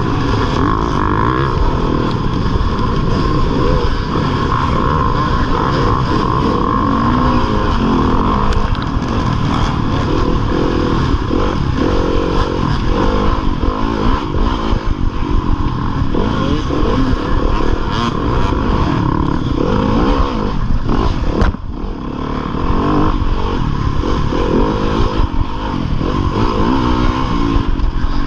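2015 Yamaha YZ250FX dirt bike's 250 cc four-stroke single-cylinder engine revving up and down hard under race throttle, with scattered knocks from the bike over rough ground. The revs drop off briefly about 21 seconds in, then pick up again.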